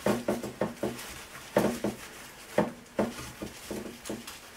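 A metal spoon knocking and clinking against a glass baking dish while fried dough balls are moved into it: a run of irregular taps that come in small clusters.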